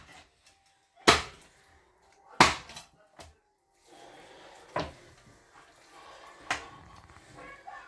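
Knife chopping through chicken on a wooden cutting board: four hard chops, irregularly spaced a second or two apart.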